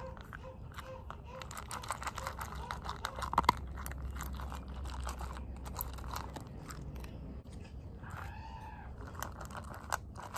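A small dog eating from a stainless steel bowl: steady crunching and chewing of dry kibble mixed with wet food. About three and a half seconds in there is a sharp clink against the bowl.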